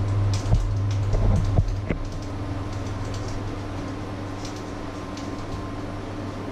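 Handling noise from a camera being adjusted on its mount: knocks and rubbing for about the first two seconds. After that a steady low electrical hum remains, with a few faint clicks.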